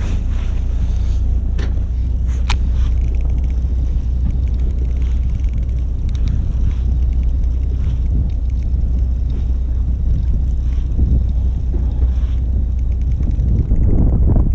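Steady low rumble aboard a fishing boat at sea, with a couple of short sharp clicks about two seconds in.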